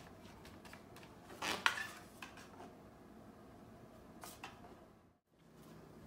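A cat nudging a toy tiger mask with its head across a wooden floor: faint clicks and scrapes, with a short rustle about a second and a half in and another near four seconds.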